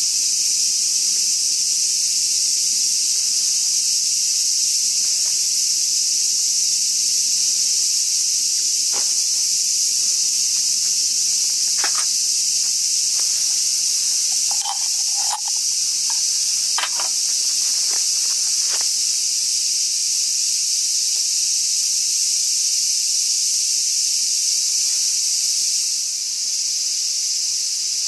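A dense, steady chorus of cicadas, high-pitched and loud throughout. Around the middle a few light metallic clinks sound as titanium cookware is moved on the stainless stove table.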